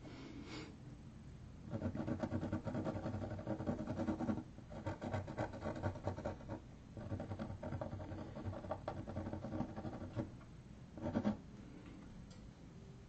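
Permanent marker scratching across paper in quick short strokes, coming in runs of a few seconds with short pauses between them.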